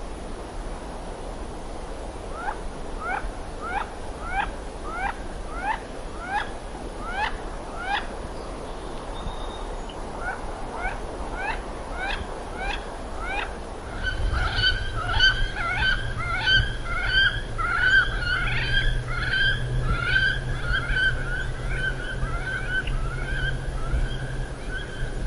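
Wood ducks calling. First comes a series of short rising squealing calls about once a second. From about halfway, it turns into a denser, overlapping chatter of calls from several birds, with a low rumble underneath.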